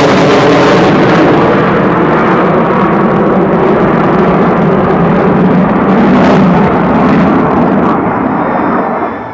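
F-15E Strike Eagle's twin jet engines roaring past in a loud flyby. The hiss fades away after the first couple of seconds, leaving a deep rumble that drops off near the end.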